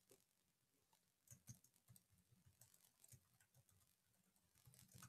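Near silence, with a few faint computer keyboard key clicks: a pair about a second and a half in, one around three seconds, and a short run near the end.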